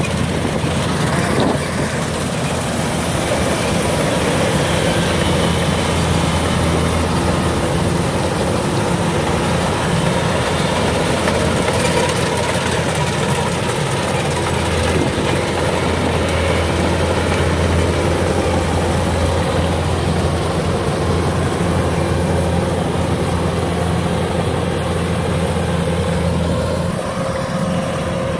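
Kubota DC-105X combine harvester running steadily while cutting rice: a continuous low diesel engine hum with the clatter and rush of its cutting and threshing machinery.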